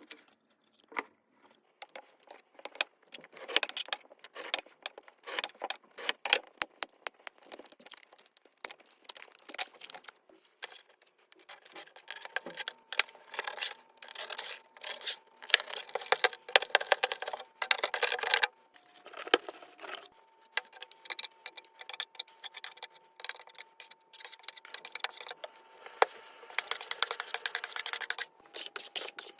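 Small hard objects being handled and worked by hand: an irregular run of clicks, knocks, scrapes and rattles.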